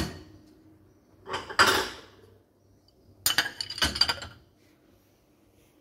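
Dishes and cups clinking and clattering as they are set into a dishwasher rack, in separate bursts about a second and a half in and again around three to four seconds in.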